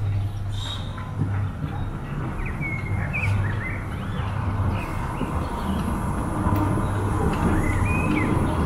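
Molli's narrow-gauge steam tank locomotive running light slowly toward the listener: a low rumble that grows louder near the end. Birds chirp briefly a few times over it.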